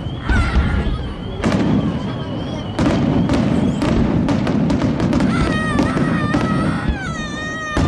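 Fireworks display: a dense run of bangs and crackling shell bursts over a continuous rumble. Wavering whistles are heard early on, and several gliding whistles sound in the second half.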